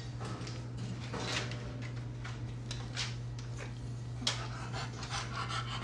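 Soft irregular rustling and scraping with a sharp tap about four seconds in as a baby spider monkey climbs and clings to the bars of her wire cage, over a steady low hum.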